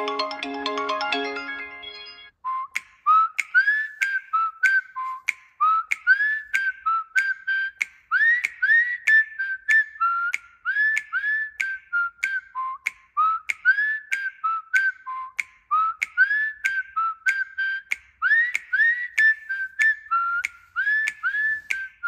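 Huawei P60 Pro ringtones. A mallet-like melodic tone fades out over the first two seconds. Then a whistled ringtone begins: short upward-sliding chirps, about two a second, in a repeating pattern.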